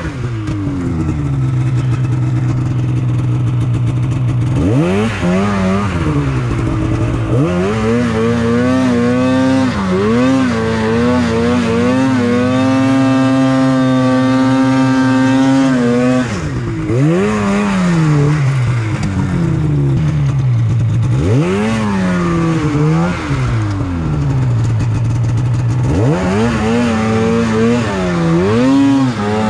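Polaris snowmobile engine running under the rider's throttle, steady at first, then revving up and down again and again, its pitch rising and falling every second or two, with a longer stretch held at high revs in the middle.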